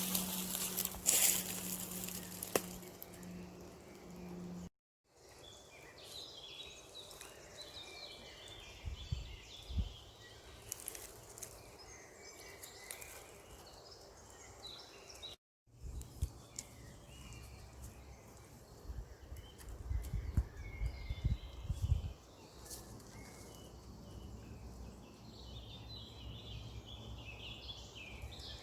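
Several small birds chirping and twittering over an outdoor background hiss. The sound drops out completely twice, briefly, about five and fifteen seconds in. A steady low hum runs for the first few seconds, and low rumbles come at times in the middle.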